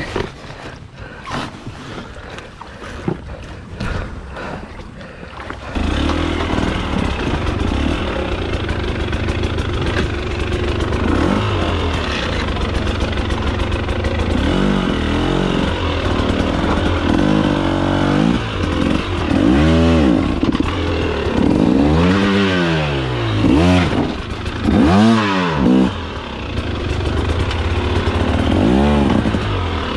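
Dirt bike engine, preceded by a few knocks and scrapes, that cuts in abruptly about six seconds in and then runs loud. Its revs rise and fall over and over as the throttle is worked, most strongly in the second half.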